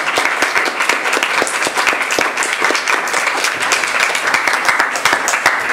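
Audience applauding: many people clapping steadily and evenly.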